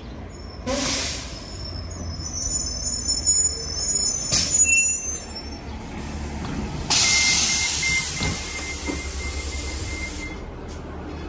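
City transit bus pulling up and stopping, its engine running low throughout, with a high brake squeal and a short hiss of air. About seven seconds in comes a long hiss of released air as the doors open, with a high beeping alongside it.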